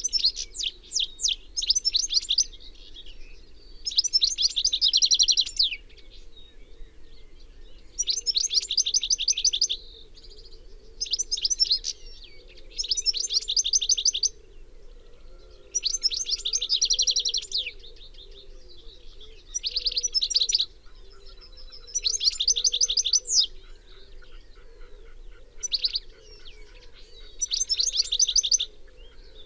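European goldfinch singing: repeated phrases of rapid twittering trills, each a second or two long, with short pauses between them.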